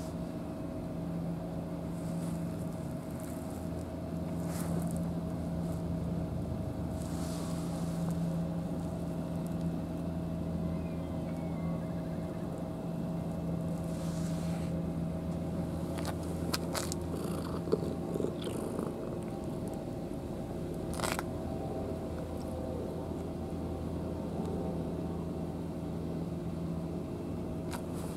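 A steady low mechanical hum at one unchanging pitch, with a few faint sharp clicks in the second half.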